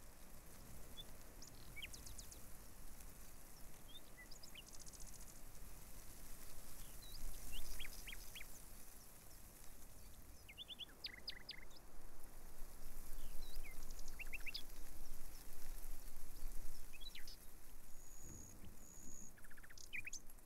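Small birds chirping: short, high chirps and trills scattered throughout, with two brief held whistles near the end, over a faint steady hiss.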